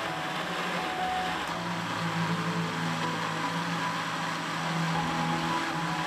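Countertop electric blender motor running steadily as it blends a smoothie, with soft background music over it.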